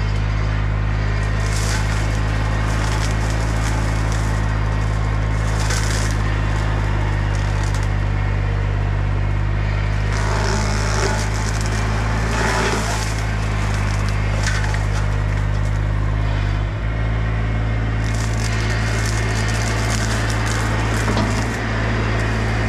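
Baumalight rotary mower head on a Bobcat E35 mini excavator cutting through oak limbs: a steady machine drone with repeated bursts of wood cracking and splintering as the blades hit branches. The longest spells of splintering come near the middle and toward the end.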